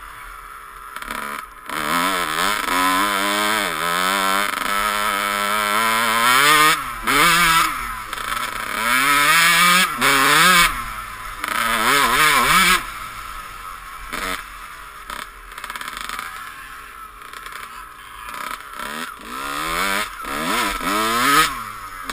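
Dirt bike engine revving hard while being ridden off-road, its pitch climbing and falling back over and over as the throttle is worked.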